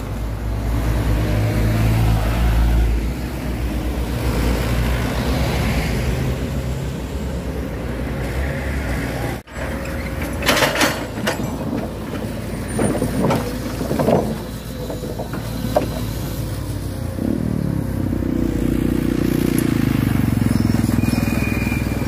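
Road traffic: a small truck and cars driving past. After a cut, a tracked excavator's diesel engine running as its grapple grabs logs, with a few seconds of wooden logs knocking together, and the engine working harder near the end as it lifts a load of logs onto the truck.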